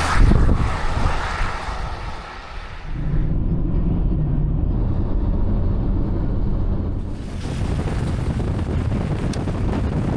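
Strong wind buffeting the microphone: a loud, steady low rumble that sounds muffled for a few seconds in the middle.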